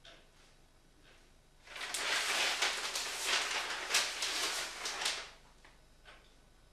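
Newspaper pages rustling and crackling as a large sheet is turned and straightened, starting about two seconds in and lasting about three and a half seconds.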